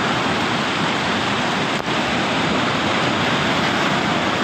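Shallow surf washing in over a sandy beach, a steady rush of water.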